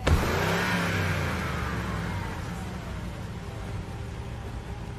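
Motor vehicle noise that swells suddenly, with a falling whine, and fades over about three seconds into steady road noise.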